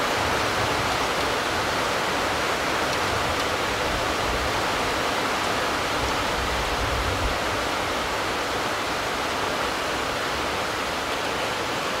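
Heavy rain falling steadily: a constant, even hiss with no breaks.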